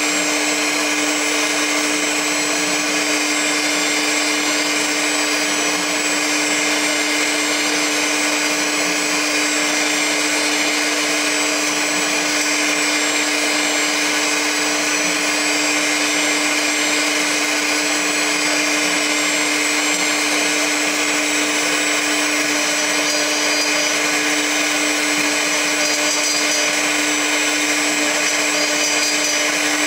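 CNC milling machine spindle running with a small end mill cutting a metal part, a steady, unchanging machine hum with a constant tone and continuous cutting noise.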